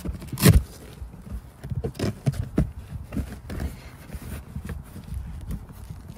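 Handling noise from a quilted faux-leather trunk-liner panel being fitted and pressed into place by hand: irregular scrapes, rustles and soft knocks, the loudest a thump about half a second in.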